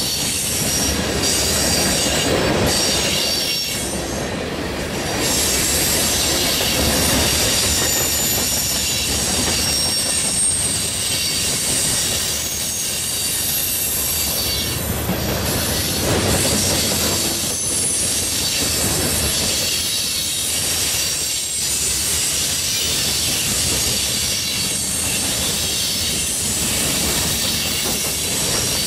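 Freight train of boxcars and tank cars rolling past: a steady rumble of wheels on rail, with high-pitched wheel squeal coming and going and a clacking of wheels over the rails.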